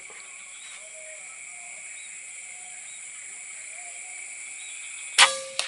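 Steady high drone of insects, then about five seconds in a single sharp gunshot from a hunting rifle, followed by a short ring.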